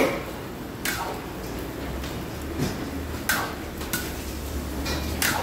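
Cookware clinking and knocking in a kitchen, about five sharp metallic knocks spaced irregularly, over a low steady hum.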